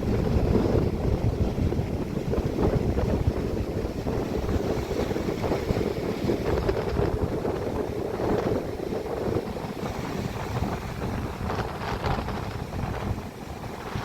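Strong wind buffeting the camera's microphone: a dense low rumble that rises and eases with the gusts.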